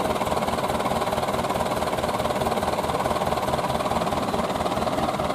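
Truck engine idling steadily, a low even throb.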